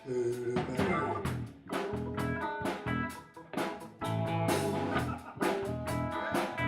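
Blues band playing an instrumental passage: guitar over a drum kit, with no singing.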